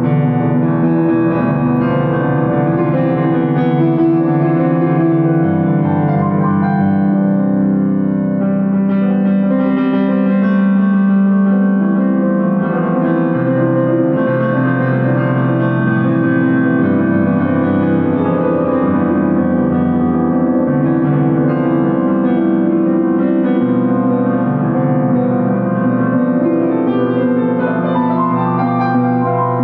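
Keyboard music in a piano or electric-piano sound, playing long held chords that change every few seconds.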